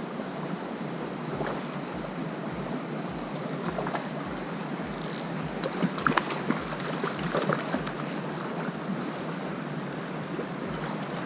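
Small river's water running steadily, with a short cluster of sharp splashes about six to seven and a half seconds in.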